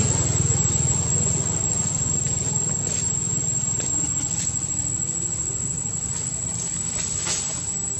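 A steady high-pitched drone of insects, with a low rumble beneath it and a few faint clicks, the clearest near the end.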